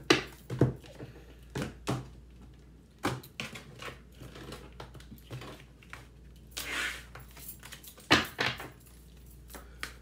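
Tarot cards being shuffled and handled on a desk: scattered sharp clicks and taps of the cards, with a brief soft swish about seven seconds in.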